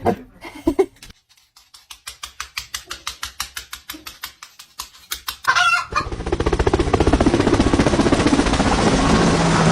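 Chicken clucking in a quick, even run of short notes, about six a second, growing louder. About six seconds in, a much louder, fast rattling noise takes over.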